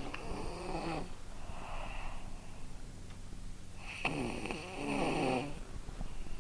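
A sleeping person snoring: two long snoring breaths about four seconds apart, each with a faint whistle.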